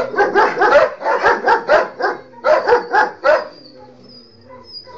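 Dog barking in quick runs of about four barks a second, with a short break a little past two seconds, then falling quiet about three and a half seconds in.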